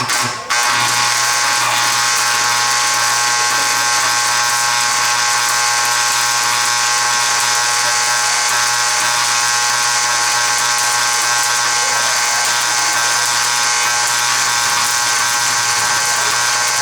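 Stick (SMAW) arc welding with a 1/8-inch E-7018 electrode on DC reverse polarity at about 90–110 amps: the arc strikes about half a second in, burns with a steady hiss and hum, and cuts off at the end as the first short bead of a backstep sequence is finished.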